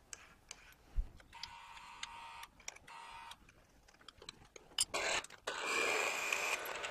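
Milling machine's keyed drill chuck being changed: light metal clicks and taps as the bit is swapped and the chuck tightened. About five seconds in, after a couple of knocks, the spindle motor starts and runs steadily with a faint whine.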